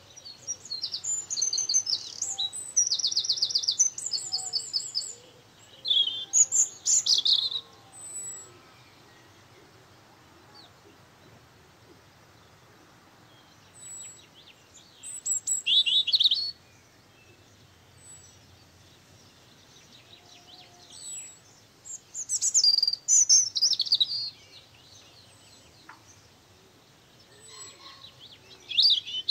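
Birds chirping and singing in spells of quick, high-pitched notes and trills, with quieter stretches of several seconds between them.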